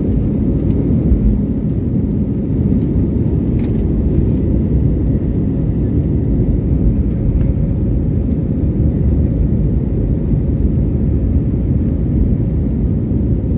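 Airliner taking off: a steady, loud low rumble of jet engines and airflow, with a faint steady tone above it.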